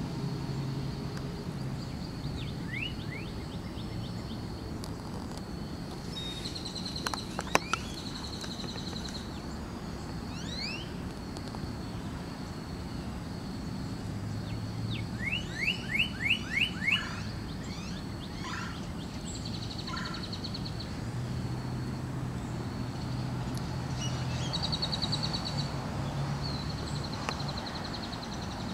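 Outdoor ambience of songbirds: repeated high trills and short rising chirps, loudest as a quick run of five chirps about halfway through, over a steady low hum. Two sharp clicks sound about seven seconds in.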